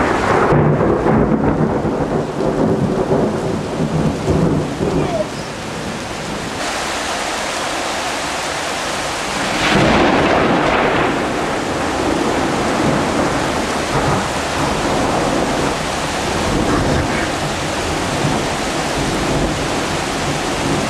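Heavy rain pouring down in a thunderstorm, with rumbling thunder and a louder swell about ten seconds in.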